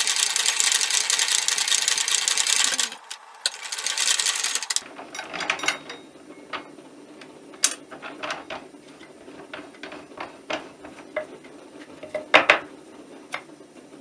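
Harsh, rapid rasping of a tool worked against mild steel, the kind of sound made finishing a forged piece. It breaks off about three seconds in, returns briefly, and stops near five seconds. Scattered light clicks and taps of metal being handled follow, with one sharper click near the end.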